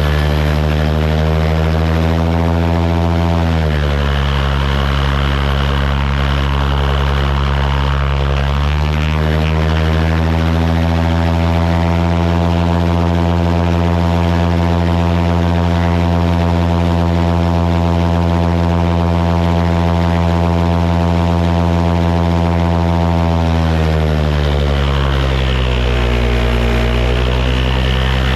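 Kitfox's Yamaha Apex four-cylinder four-stroke engine running on its propeller, an engine being checked for a suspected vacuum leak and misfire. It runs steadily, drops to a lower speed a few seconds in, comes back up about five seconds later, holds, then drops again and starts rising near the end.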